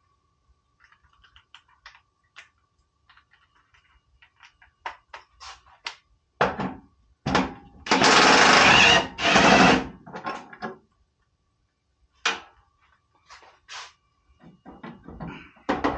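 Cordless drill with a socket on it running in two bursts of about a second each, taking out a tight bolt. Scattered clicks and knocks of tools and metal parts being handled before and after.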